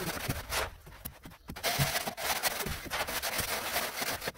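Wooden screed board dragged across damp cement floor screed mortar, a gritty scraping. It scrapes once briefly, stops for about a second, then scrapes again in one longer stroke.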